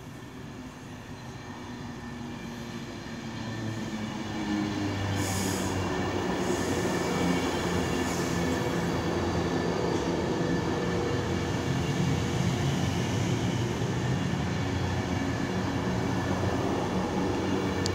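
Express passenger train approaching and running through a station: a rumble that grows louder over the first few seconds, then a steady loud roll of wheels on rail with a low hum as the carriages go past. A brief hiss comes about five seconds in.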